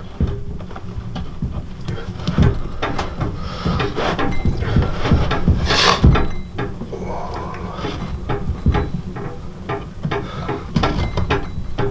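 Lacing on the back of a frame drum being pulled tight, scraping and rubbing as it is drawn through the other laces, with clicks and knocks from the hands and the drum frame. A sharp knock about six seconds in is the loudest. This is the final tightening that tensions the drum head.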